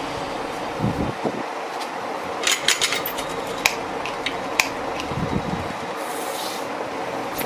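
Steady workshop hum with a cluster of sharp clicks and taps about two and a half seconds in, then two more single clicks and a few dull low thuds, as ceiling fan parts are handled during assembly.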